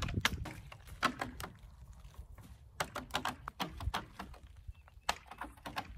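Spring-steel wiggle wire being worked out of a high tunnel's aluminium channel lock: irregular clicking, several clicks a second, thinning out in the middle.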